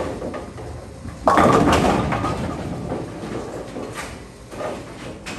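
Roto Grip Hustle RIP bowling ball rolling down the lane and striking the pins about a second in: a sudden crash of pins clattering that dies away over the next couple of seconds, with a smaller click near the end.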